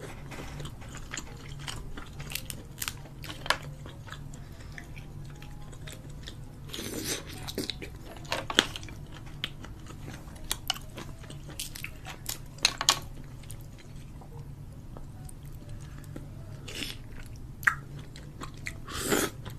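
A person biting and chewing seafood close to the microphone, with irregular sharp crunches and mouth sounds over a low steady hum.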